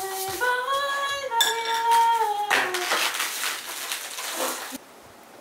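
Plastic wrap rustling and dishes clinking as delivery food bowls are unwrapped, with a voice holding a few stepped, rising sung notes for the first two and a half seconds. The rustle and clatter carry on alone, then cut off abruptly to a quiet background near the end.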